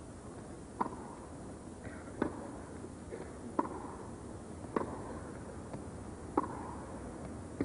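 Tennis ball struck back and forth by rackets in a baseline rally: about five sharp hits, one every second and a half or so, each with a short echo in the indoor arena.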